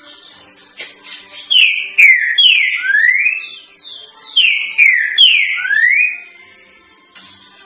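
Green-winged saltator (trinca-ferro) singing its 'three-note boi' song twice: each phrase is three loud, falling, slurred whistles followed by a rising whistle. This is the tutor song used to teach young birds.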